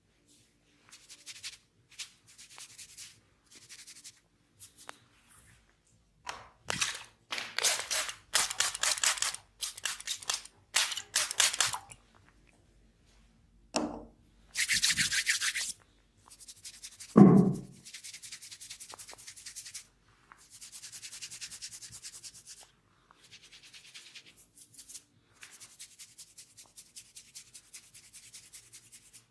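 Hands rubbing and scrubbing a person's hair and scalp during a head massage, in repeated bursts of quick, rasping strokes. A single loud, short thud comes about two-thirds of the way through, with a smaller one shortly before it.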